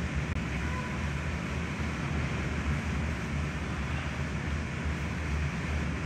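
Steady low rumble with a hiss over it, even in level throughout, and a couple of faint short high notes in it.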